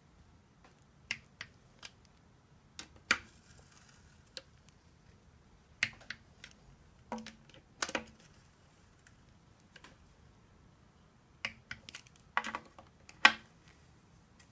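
Sharp clicks and knocks of hands and a tool working on a 42RE automatic transmission's oil pan and its bolts, coming in scattered small groups, the loudest about a second before the end.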